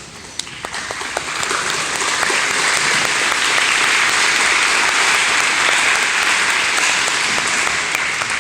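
Audience applauding: clapping builds over about two seconds, holds steady, and begins to fade near the end.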